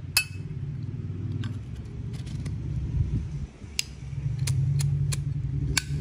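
Metal clicks and clinks of a Zippo lighter being handled: a sharp click with a short ring just after the start, then about ten smaller clicks, bunched in the second half, over a steady low hum.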